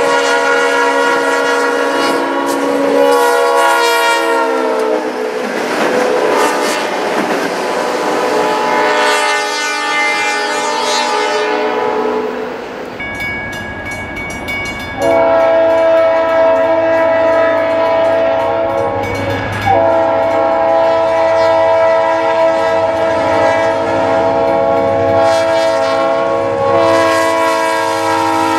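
Diesel freight locomotive air horns blowing as trains pass. In the first half the horn's pitch drops as the train goes by. In the second half long horn blasts, broken briefly twice, sound over the low running of the diesel engines and the rumble of the train.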